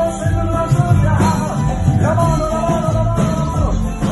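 Live band music: a nylon-string electro-acoustic guitar with bass and percussion under a held melody line whose notes slide from one pitch to the next.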